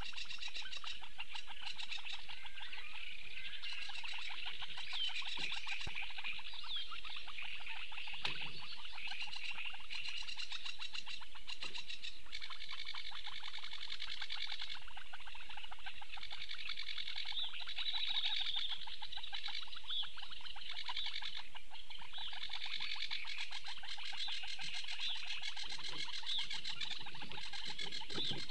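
Steady dense chorus of birds and frogs calling from the reed bed, a continuous overlapping mass of fast chattering, trilling calls.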